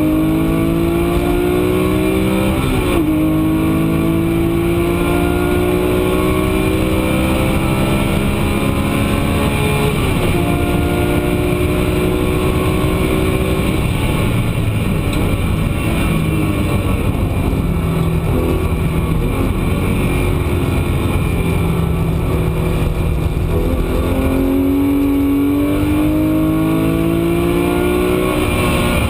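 Porsche 997 GT3 RS Mk2's naturally aspirated flat-six, heard from inside the cabin, revving hard under acceleration with quick upshifts about three and ten seconds in. The revs are steadier and lower through the middle, then climb again to another shift near the end.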